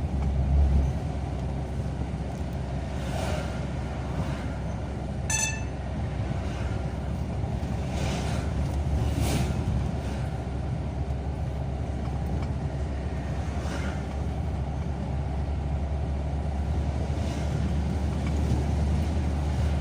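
Car driving along a road: steady low engine and tyre rumble. A brief high-pitched tone sounds once about five seconds in.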